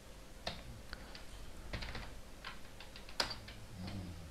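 Computer keyboard being typed on: a scattered run of faint keystrokes, with one sharper keystroke about three seconds in.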